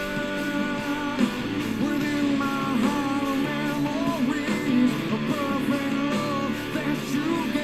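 Background rock music with guitar and a singing voice.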